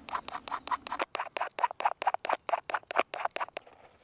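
Spine of a Victorinox Handyman's wood saw scraping thin shavings off resin-soaked conifer wood: a fast, even run of short scratching strokes, about seven a second, that stops near the end.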